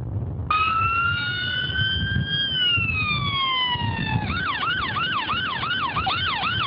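Ambulance siren coming on about half a second in with one slow wail that rises and falls. A little past halfway it switches to a fast yelp of about three sweeps a second, over a low rumble of engine and road noise.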